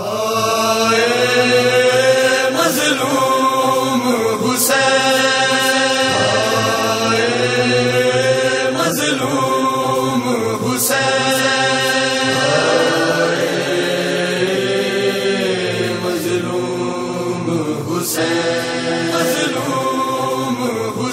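Male voices chanting a slow Shia lament (noha), holding long, gliding notes that change every couple of seconds.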